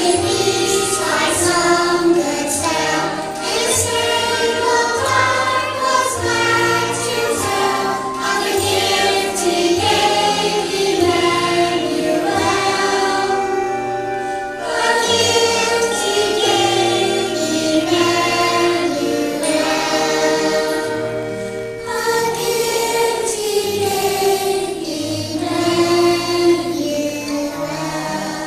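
Children's choir singing a Christmas song with instrumental accompaniment.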